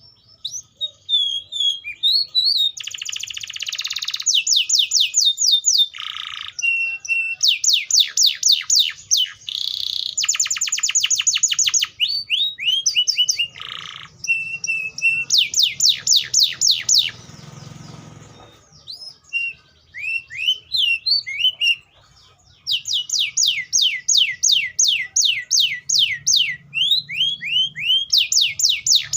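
A canary (Serinus canaria) singing a long, varied song: fast trills of repeated falling notes, buzzy rattles and short whistles, with brief pauses between phrases.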